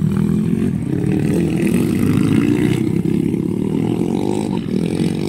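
Motocross dirt bike engines running hard, their pitch rising and falling with the throttle, one bike close by at the start.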